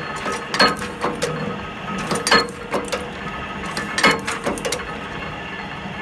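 Switch-board cutting press punching slots in a white board plate: three sharp strikes, roughly one every 1.7 seconds, with lighter clicks between them, over the steady hum of the running machine.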